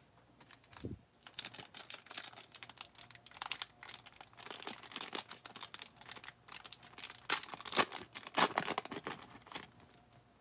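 A 1991 Fleer Ultra baseball card pack's wrapper crinkling and tearing as it is pulled open by hand: a dense run of sharp crackles, loudest near the end. A soft thump comes about a second in.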